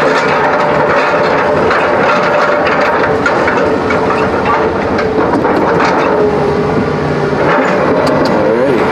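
A large engine running steadily, with scattered clanks and rattles throughout.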